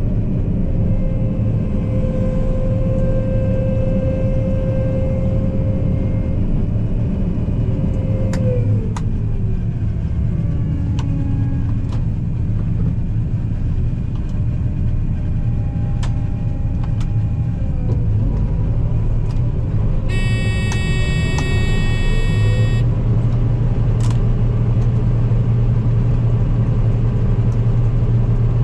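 Combine engine running under road travel, a steady drone that drops in pitch as it slows about eight seconds in and climbs again around eighteen seconds. A high, steady electronic tone sounds for about two seconds near twenty seconds.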